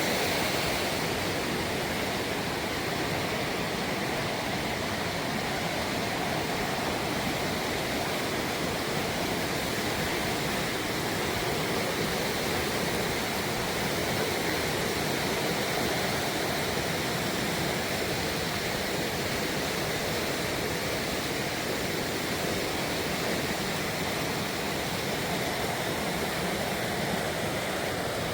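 Steady rush of fast-flowing river water, even and unbroken.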